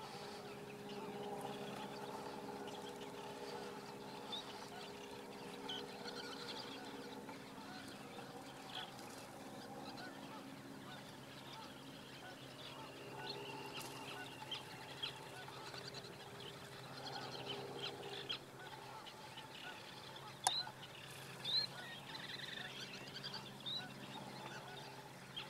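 Marsh ambience: a faint low steady drone with short high bird chirps scattered throughout, and one sharp click about twenty seconds in.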